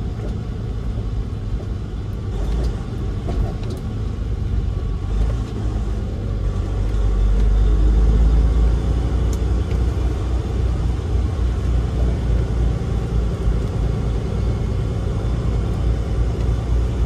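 Road train prime mover's diesel engine and tyres rumbling steadily as it drives, heard from inside the cab; the rumble swells louder for a couple of seconds about halfway through.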